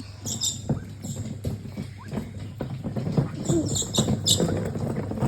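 Ground birds pecking, a rapid irregular tapping, with short high chirps and squeaks from birds close by.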